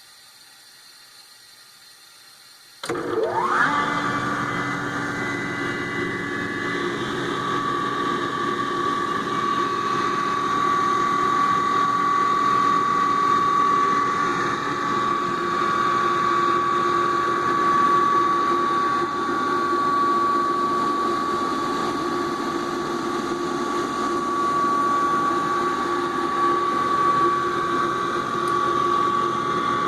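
Industrial rotary screw air compressor starting up about three seconds in, spinning up with a quick rising whine, then running steadily with a high, even whine over a lower hum.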